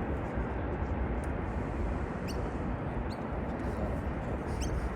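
Steady low rumbling outdoor noise, with a few short, high chirps from a bird rising in pitch, one about two seconds in and another near the end.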